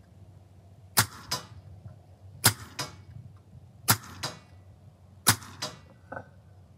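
AEA HP SS semiautomatic PCP air pistol in .25 calibre firing four shots, about one every second and a half. Each sharp crack is followed about a third of a second later by a fainter second report.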